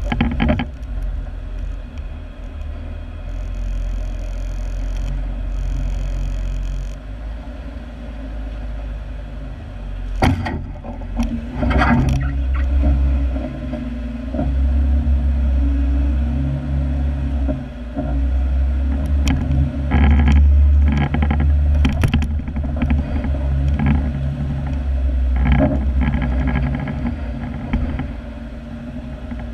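Off-road 4x4 driving a rough, rutted trail: the engine runs low and uneven, swelling and dipping. Sharp knocks and rattles of the vehicle jolting over bumps come about ten seconds in, again near twelve seconds, and several times between about twenty and twenty-six seconds.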